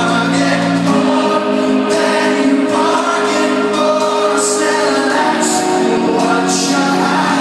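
Indie rock band playing live, with sung vocals over keyboards and drums, loud and steady.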